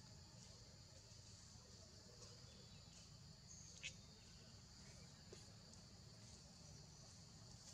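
Faint, steady high-pitched buzzing of an insect chorus in forest, with one short, sharp high chirp about four seconds in.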